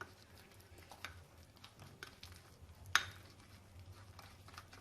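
A spoon stirring a thick paste of ground roasted chickpeas and sweetened fresh cheese, with soft scrapes and light clinks against the container. One sharper clink comes about three seconds in.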